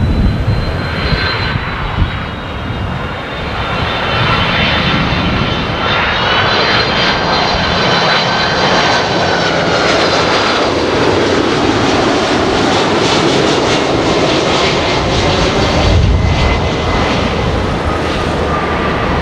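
Boeing 767-300ER airliner with General Electric CF6-80C2 turbofans on landing approach, passing close by: a loud, steady jet roar with a high engine whine over it. The whine climbs slightly about six seconds in, and a deeper rumble swells near the end as the plane goes past.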